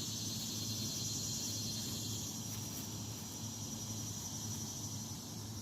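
Steady, high-pitched chorus of insects, a continuous fine trill, over a faint low hum.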